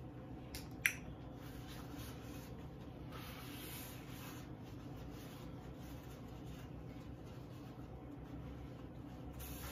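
Faint eating-table sounds: a sharp click about a second in, then a soft rustle of a paper napkin rubbed over fingers, over a steady low hum.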